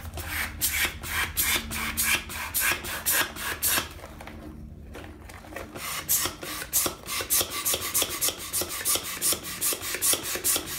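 Hand air pump worked in repeated strokes to inflate an exercise ball, each stroke a short rush of air. The pumping pauses briefly about four seconds in, then picks up faster, about four strokes a second.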